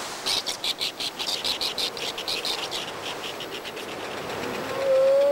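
Snow petrels chattering: a rapid series of high notes, about six a second, fading out after about three seconds. About four and a half seconds in, a drawn-out lower cry, the loudest sound, drops in pitch as it ends.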